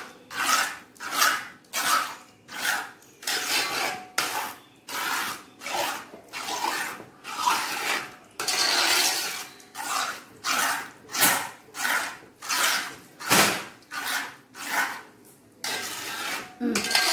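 Metal spoon scraping round the bottom and sides of a large metal pot while stirring thick, reducing payasam, in steady rhythmic strokes of about one and a half a second.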